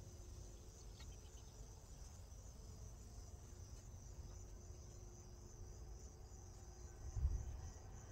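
Insects trilling steadily and faintly in a high, slightly pulsing band over a low outdoor rumble, with one short low thump about seven seconds in.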